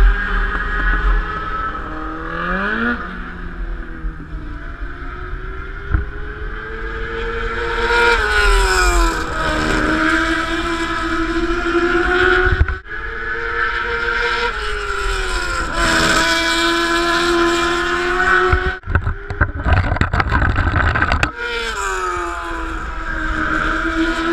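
Racing engine heard onboard, running hard with its pitch rising and falling as it revs up and backs off around the laps. The throttle is lifted briefly about halfway through and again near the end, where a rushing noise takes over for a couple of seconds.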